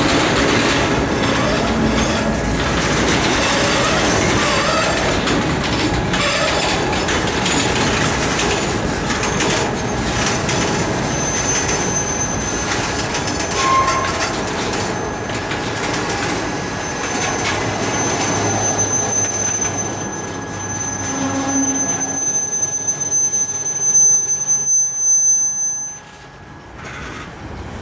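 Freight cars (covered hoppers, tank cars and slatted open-top cars) rolling past, with steady wheel-on-rail rumble and clatter. A thin, high, steady wheel squeal joins about a third of the way in and lasts until the sound drops away abruptly near the end.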